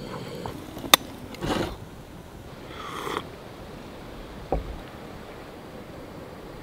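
Small handling sounds at a wooden camp table over a steady faint hiss. There are two sharp clicks in the first second, short breathy rustles around one and a half and three seconds, and a single knock about four and a half seconds in, as a wooden kuksa cup is set down on the wooden table.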